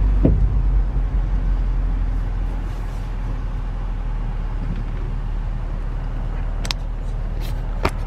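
Steady low engine and road rumble of a Nissan car, heard from inside the cabin while it is driven, with a few light clicks, one just after the start and two near the end.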